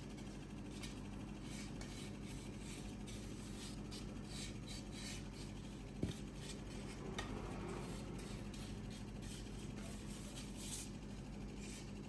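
Irregular hand rubbing strokes on the wooden surface of a walnut bowl, over a steady low hum. One sharp knock about six seconds in.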